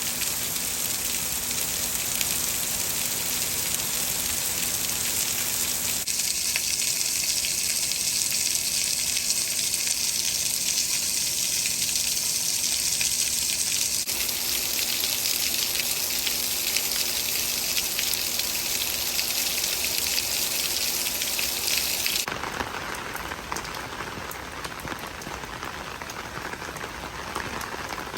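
Steady rain falling and pattering on surfaces, with no rhythm or tone. The sound changes abruptly about 6, 14 and 22 seconds in, and after the last change it is duller and a little quieter.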